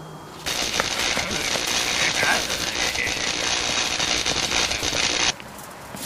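Electric crackling and sparking, like a lightning or electricity sound effect. It starts suddenly about half a second in and cuts off abruptly near the end.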